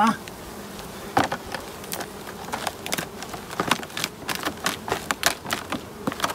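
Clear plastic hive inner cover crackling and clicking under a person's weight, about 100 kg, as he stands and bounces on it in a load test. The sharp irregular cracks grow denser after a few seconds, over the steady buzz of honeybees around the open hive.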